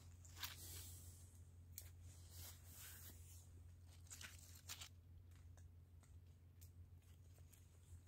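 Near silence: a low steady hum with a few faint, brief crackles and rustles scattered through it.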